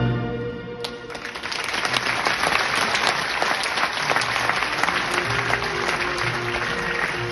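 Audience applauding in a theatre, the clapping breaking out about a second in as the orchestral music stops, with the orchestra playing quietly again under it from about halfway.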